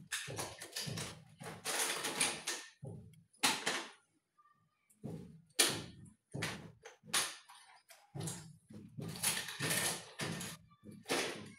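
Irregular clicks, taps and rustles of cosmetics being handled: plastic makeup palettes and containers picked up, moved and opened, in short bursts with brief pauses.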